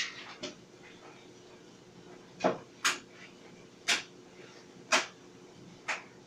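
Clothes dryer running with a steady low hum, and sharp clacks from the tumbling load striking the drum, roughly once a second at uneven intervals.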